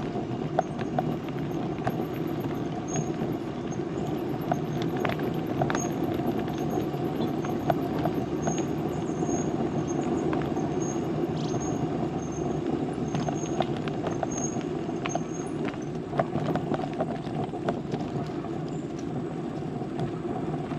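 Bicycle rolling along a paved path: steady tyre and wind noise with scattered clicks and rattles.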